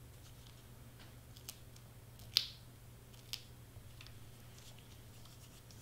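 A few faint, sharp clicks from hands working with cardstock and foam tape, the loudest about two and a half seconds in, over a steady low hum.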